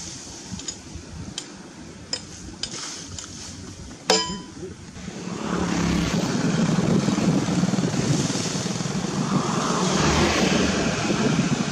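A few light knocks, then a sharp metallic clang that rings briefly about four seconds in, from the metal frame and handles of a mud-bogged walking tractor being handled. From about five seconds on a loud, steady, rough rumbling noise takes over.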